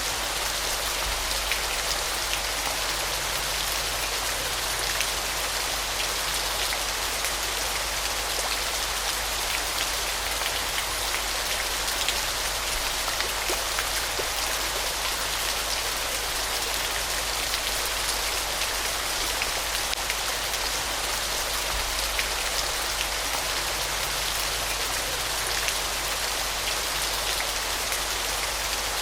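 Waterfall: a steady, unbroken rush of falling water, full of fine splashing.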